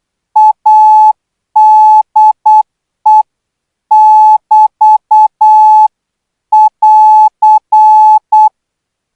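Morse code practice tone at 12 words per minute: a single steady beep keyed in short dits and longer dahs. The code ends with dah-dit-dit-dit-dah, the BT break sign, then dit-dah-dit-dah-dit, the AR end-of-message sign, and stops near the end.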